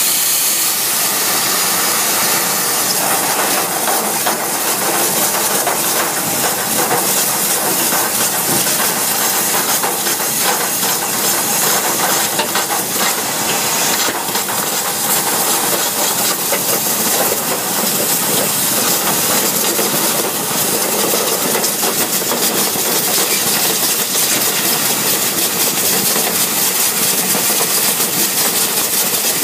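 Compressed air blasting from a duct-cleaning whip hose inside sheet-metal ductwork: a loud, steady hiss with a dense, rapid rattle of the hose and loosened debris against the duct walls.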